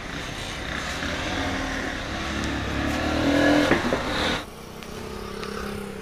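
A motor vehicle engine running and growing louder, cut off abruptly about four and a half seconds in, after which a quieter engine hum with a steady low tone continues.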